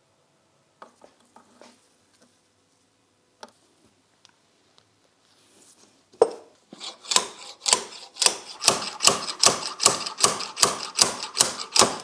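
Hand work on a motorcycle brake caliper at the bench: scattered light clicks and taps of metal parts, then from about six seconds in a fast, even run of short strokes, about three a second.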